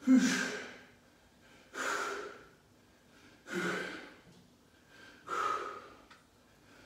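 A man's forceful breaths in time with barbell overhead presses: four sharp exhalations about every 1.7 s, the first the loudest, with a grunting voice in it.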